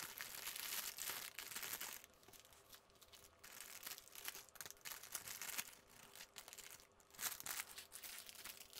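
Thin clear plastic bag crinkling as hands handle and pull at it, in irregular bursts of crackle.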